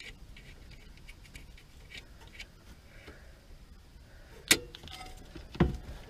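Small metallic clicks and rattles from a Yamaha G16 golf cart's throttle cable and linkage being handled. One sharp click comes about four and a half seconds in, and a duller knock follows about a second later.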